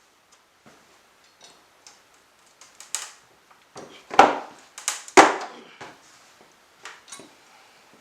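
Spruce pallet being pried apart with a pipe pallet breaker bar: a series of separate sharp cracks and knocks of wood and metal. The two loudest come about four and five seconds in.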